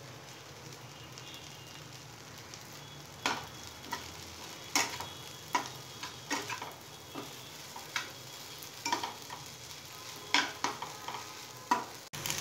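A steel spatula stirring kurdai bhaji in a kadhai over a faint, steady sizzle of frying food. From about three seconds in, the spatula scrapes and clicks irregularly against the pan, about a dozen strokes.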